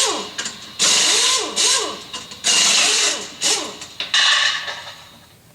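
Air wrench run in short hissing bursts, about every second and a half. Each burst has a whine that rises and falls as the air motor spins up and slows. The last burst fades out near the end.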